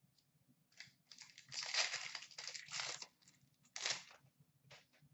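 Rustling and crinkling of trading cards and their pack wrapper being handled. It comes in a cluster of bursts over about two seconds, then one more sharp rustle just before the four-second mark.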